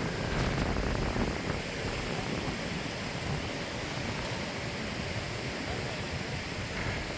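Strong wind blowing and buffeting the microphone: a steady rushing noise with an uneven low rumble underneath.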